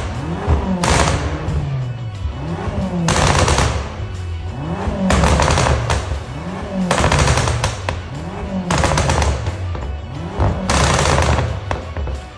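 BMW M6 engine on its stock exhaust, blipped again and again, about six times, each rev rising and falling in pitch. Each rev is followed by a rapid burst of pops and crackles on the overrun, produced by an ECU crackle tune.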